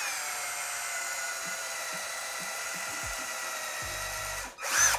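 Cordless drill with a 10 mm bit boring into a wooden broomstick lure blank. The motor whine dips slightly as the bit bites, then runs steadily. Near the end it stops for a moment and is briefly revved again.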